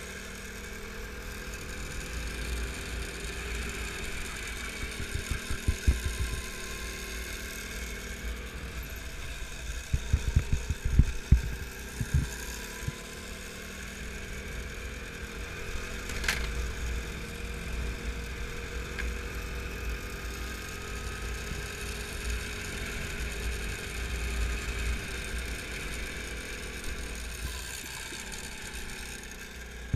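Kart engine running at speed, heard from onboard, its pitch rising and falling gently with the throttle through the corners. Clusters of sharp knocks and rattles come about five and ten seconds in, and a single click a little after the middle.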